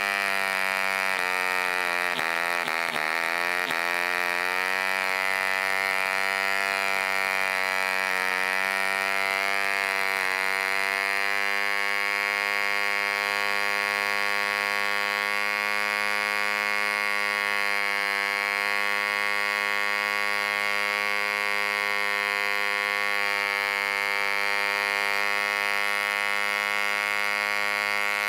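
1948 ED 2cc Competition Special model diesel engine running at about 6,000 RPM, turning a 10x6 propeller. Its pitch wavers and dips during the first ten seconds or so as the compression screw is adjusted, then holds steady.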